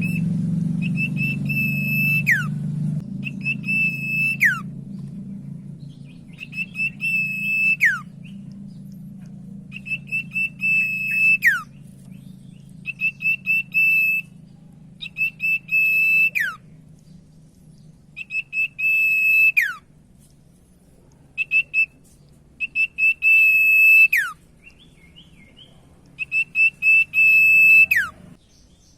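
Common iora (cipoh/sirtu) singing a repeated song: a long, steady, high whistle held for a second or more that drops sharply at the end, given about nine times with short gaps. A low background hum fades out over the first few seconds.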